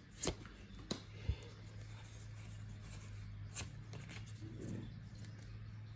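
A Pokémon booster pack being torn open and its cards slid out by hand: soft rubbing and rustling of the foil wrapper and cards, broken by a few sharp crinkles or clicks, over a low steady hum.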